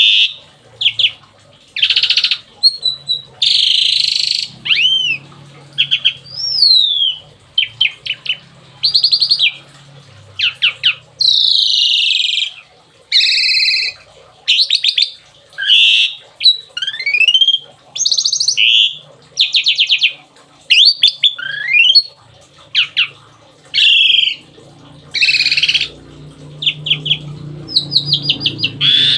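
Asian pied starling (jalak suren) singing a long, varied song: rapid trilled bursts, rising and falling whistles and a few harsh, scratchy notes, one phrase after another about a second apart with hardly a break.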